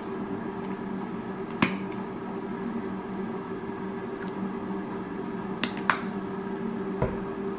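Air fryer running with a steady hum. Over it come a few sharp clicks from the flip-top cap of a squeeze bottle of salad dressing, one about a second and a half in and two together near the end, then a low thump.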